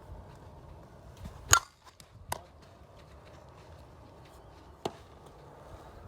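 Sharp knocks of softball fielding practice, a ball struck by a bat or smacking into a glove: one loud crack about a second and a half in, a smaller one shortly after, and another near the end.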